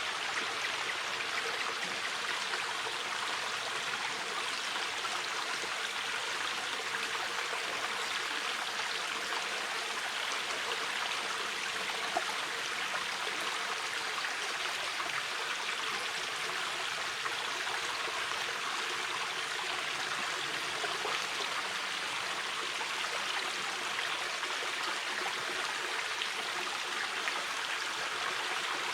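A shallow mountain river flowing steadily, an even rushing and babbling of water over stones.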